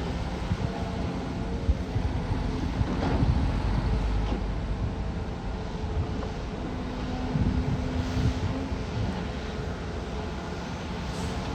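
Caterpillar excavator's diesel engine running under load, with occasional knocks and a steady tone coming in for about two seconds past the middle.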